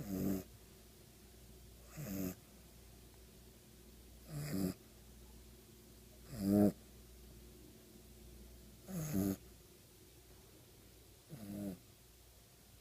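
A sleeping puppy snoring: six short snores, one about every two seconds.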